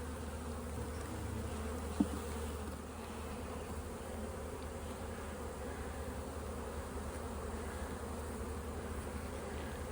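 Honey bees buzzing steadily around an open hive, a dense, even hum of many bees in flight. A single brief click or knock about two seconds in.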